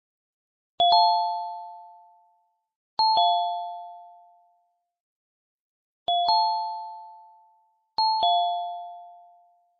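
Two-tone ding-dong chime sound effect, like an electronic doorbell, sounding four times. Each chime is two bell-like notes a moment apart that ring out and fade; the first pair steps up, the second steps down, and the rising-then-falling pattern then repeats.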